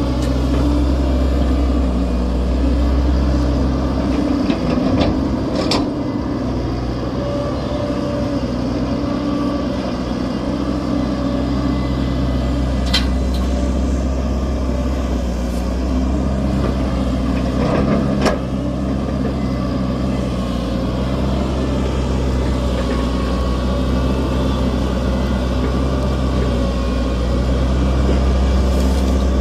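Hitachi excavator's diesel engine running steadily, its pitch shifting slightly now and then, with a few sharp knocks over it.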